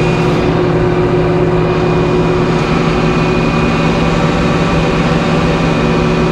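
Sawmill machinery running steadily at a constant pitch while the log-handling arms bring a white pine log up onto the deck.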